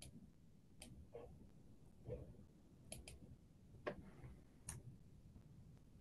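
Near silence with about six faint, short clicks at uneven intervals.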